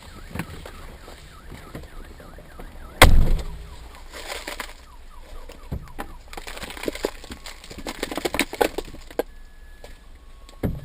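A single loud knock about three seconds in, with a short low rumble after it, followed by a run of smaller, irregular knocks and clatter.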